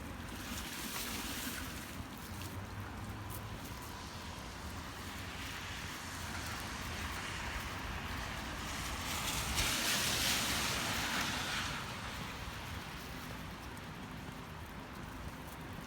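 Steady rain noise with a hiss. A louder hissing swell builds and fades about nine to twelve seconds in.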